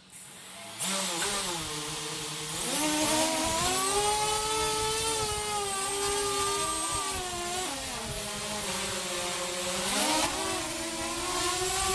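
Drone propellers spinning up about a second in and lifting off, a steady pitched whine. The pitch climbs around three seconds in, sags for a couple of seconds later on, and climbs again near the end as the throttle changes.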